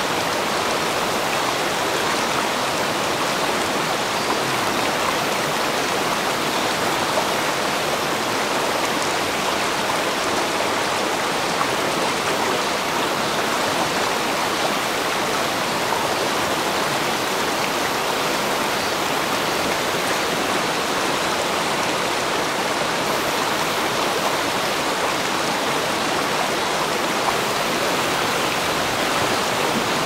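Shallow mountain stream rushing over rocks close by: a steady, even rush of water.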